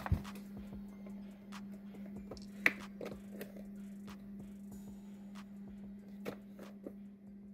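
Hands opening a cardboard action-figure box and working the clear plastic blister tray out: scattered clicks, taps and light scrapes of cardboard and plastic, the sharpest a click nearly three seconds in. A steady low hum runs underneath.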